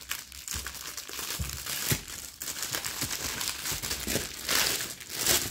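Clear plastic packaging bags crinkling as they are handled and unpacked, an irregular crackle that is loudest near the end.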